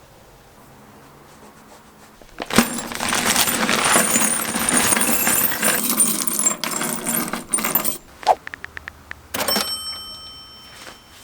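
Small metal parts clinking and jangling together for several seconds. This is followed by a quick run of clicks and a single metallic strike that rings on with high clear tones.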